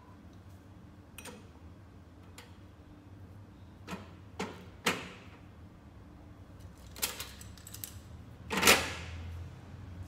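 Scattered metallic clicks and knocks from a Falcon Euro Safe ES300 being worked: its combination dial turning, then its key lock and three-spoke handle, with the loudest clunk about three-quarters of the way through. The safe stays shut because its key lock is still locked.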